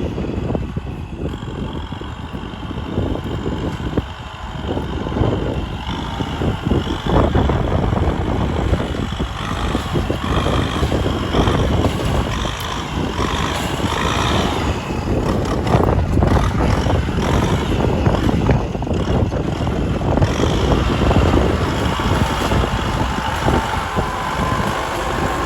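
Kubota farm tractor's diesel engine running steadily under load as it works the soil, with irregular knocks and rattles throughout.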